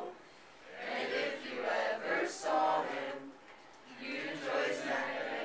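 A group of teenagers' voices singing together in unison, in phrases of a second or two with short pauses between.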